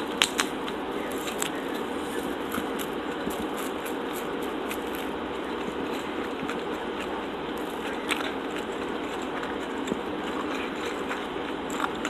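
A person biting into and chewing a roasted vegetable sandwich: a few sharp crunches at the very start, then soft chewing with small crackles and one more crunch about eight seconds in, over a steady background hiss.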